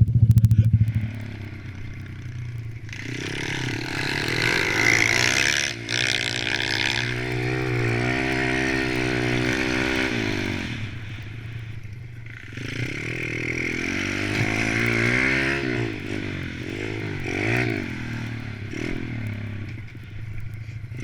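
Small single-cylinder four-stroke pit bike engines revving up and down as the bikes ride laps. One bike is loud and close at the very start, then fades, and the engine notes swell again as the riders come back around twice.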